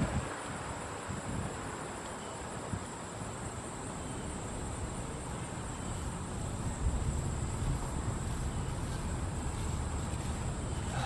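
Outdoor background with the siren silent: a steady high-pitched insect drone over a low rumble, which grows louder about seven seconds in.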